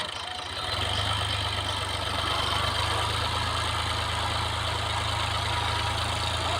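Combine harvester's engine running steadily, a low drone that comes in strongly about a second in.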